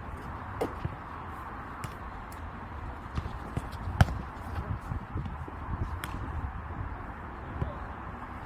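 Jokgu ball being kicked and bouncing on the court: scattered sharp knocks, the loudest strike about halfway through and another about two seconds later, over steady background noise.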